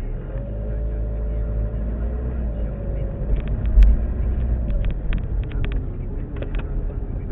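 Car engine pulling away from a standstill and accelerating, a rising engine note over a heavy low rumble, heard from inside the cabin. There is a single sharp knock about four seconds in, then scattered light ticks and rattles.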